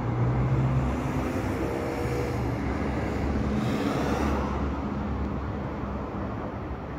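Mercedes-AMG GT R's twin-turbo V8 running steadily at low revs as the car manoeuvres at parking speed, its pitch shifting only slightly.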